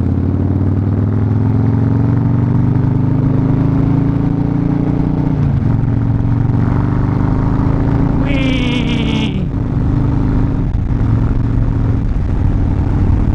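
Harley-Davidson Fat Bob's V-twin engine pulling under way: its note climbs steadily, drops once about five seconds in as the gear changes, then climbs again. A brief high warbling sound cuts in about eight seconds in.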